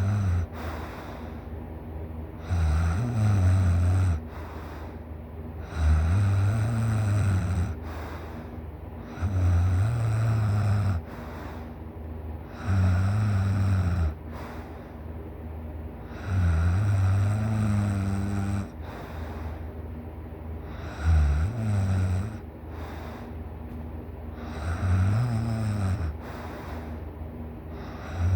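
A person snoring in deep sleep: a loud, low snore on each breath, about eight in a row, one every three to four seconds, with quieter breathing between them.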